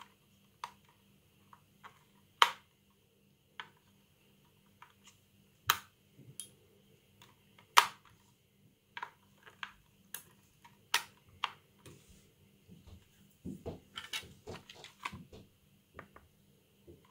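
Batteries clicking and knocking into the plastic battery compartment of a Brother PT-H110 label maker as they are pressed in one by one: a series of separate sharp clicks, with a quicker run of small clicks and rattles near the end.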